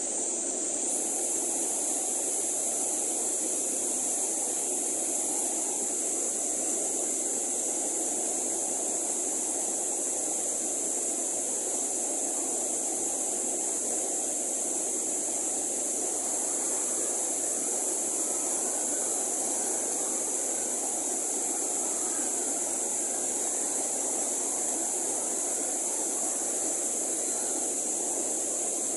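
Rapids of a rocky mountain stream, white water rushing steadily over boulders.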